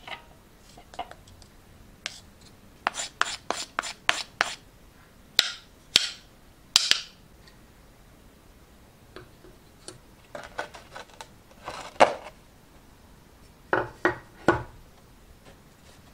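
Metal spoon scraping and pressing damp wasanbon sugar into a wooden candy mold: a quick run of short scrapes about three seconds in, longer scrapes a little later, and then more clicks and knocks as the wooden mold is handled near the end.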